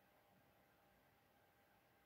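Near silence: faint room tone with a low steady hiss.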